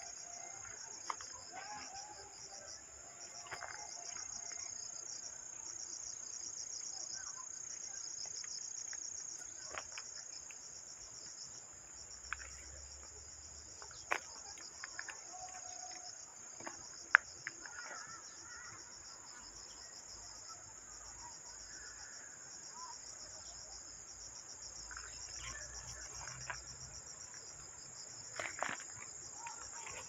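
Autumn insect chorus: a steady, high-pitched, rapidly pulsing trill of crickets in woodland undergrowth. A few sharp clicks and snaps break in here and there, the loudest a little past halfway.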